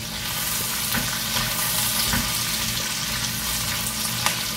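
Diced onion, tomato and capsicum sizzling as they sauté in oil in a nonstick frying pan, with a few light taps of a slotted spatula as they are stirred.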